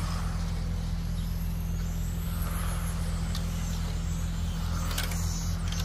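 RC race cars running around the track, their motors giving faint high whines that rise and fall as they pass, over a steady low hum. There are a couple of sharp clicks about five seconds in.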